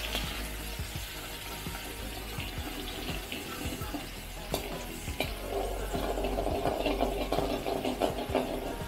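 Minced garlic sizzling in hot oil in a metal wok, with a metal spatula scraping and tapping against the pan as it is stirred.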